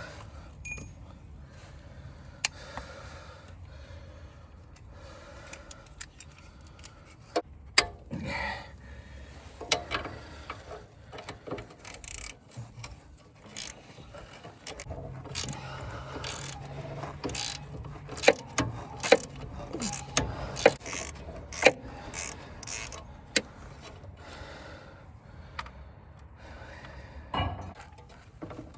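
Metal hand tools clinking and knocking against metal parts, a long run of sharp irregular clicks and taps, with a few louder strikes around the middle and a low steady hum underneath.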